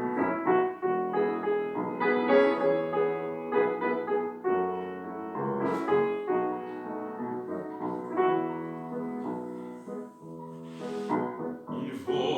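Piano playing the introduction to a slow song, a melody over chords. Two brief hissing noises sound over it, about six and eleven seconds in.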